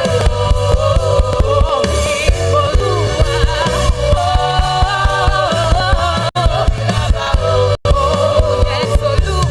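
Live gospel worship music: several voices singing in harmony over bass and drums with a steady beat. The sound drops out for an instant twice, about six and eight seconds in.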